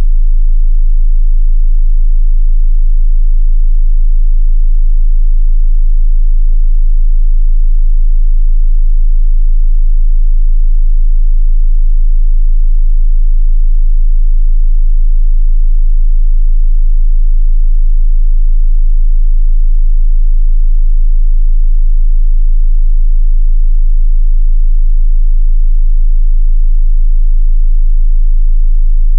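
Steady 27 Hz sine-wave test tone: one continuous, very deep bass tone, loud and unchanging in pitch and level.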